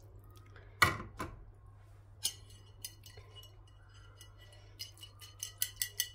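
Utensils knocking and clinking against a bowl: a sharp knock about a second in, then near the end a coil whisk beats the egg-lemon mixture in a quick run of ringing clinks. The cook is tempering the egg-lemon sauce with hot broth before it goes into the soup.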